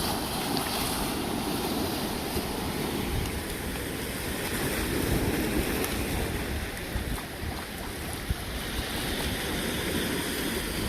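Pacific Ocean surf breaking and washing steadily along the shore, with wind rumbling on the microphone.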